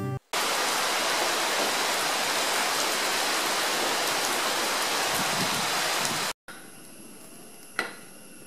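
Heavy rain pouring down steadily, cutting off suddenly after about six seconds. A gas stove burner then hisses softly, with a sharp clink just before the end.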